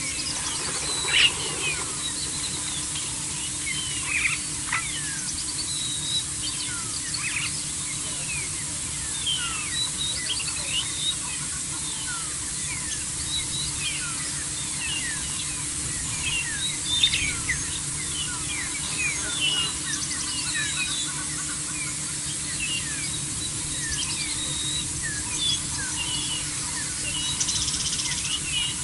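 Small birds chirping and calling all through, many short, quick, mostly falling notes overlapping one another, over a steady hiss and a faint low hum.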